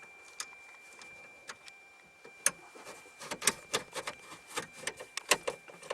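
Phillips screwdriver driving screws into the plastic dash trim: light clicks and ticks, sparse at first, then several a second from about three seconds in.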